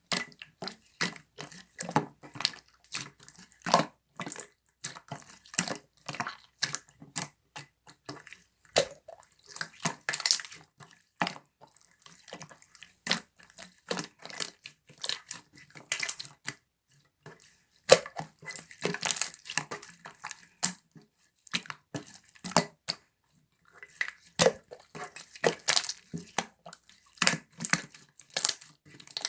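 Slime being squeezed, pressed and stretched by hand, giving rapid irregular wet, sticky clicks and pops, with a brief pause partway through.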